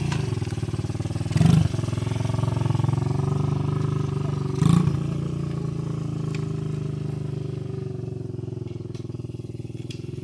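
Dirt bike engines idling steadily with a fast, even pulse, with two short loud bursts about a second and a half in and near five seconds in.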